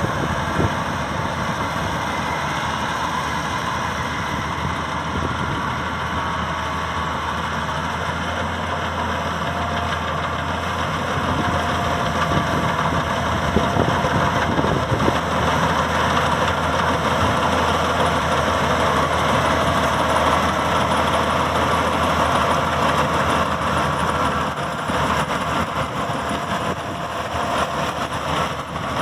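Maxxi Bimo 102 combine harvester running with a steady engine and machinery drone, growing somewhat louder about twelve seconds in.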